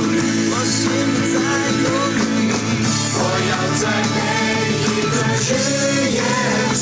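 A Chinese worship song, with a singing voice over instrumental accompaniment.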